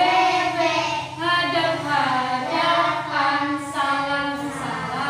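A woman and a group of young children singing an action song together, in long held notes.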